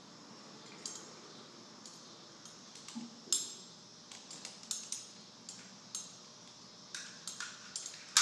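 Steel carabiners and a rescue pulley clinking and clicking as they are handled and clipped together, a run of separate sharp metallic clicks with the loudest near the end.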